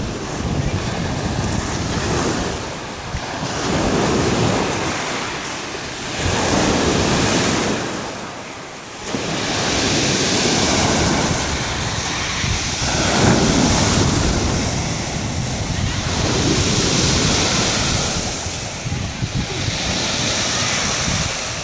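Sea waves breaking on a pebble beach and washing up over the stones, the surf swelling and ebbing about every three to four seconds. Wind buffets the microphone throughout.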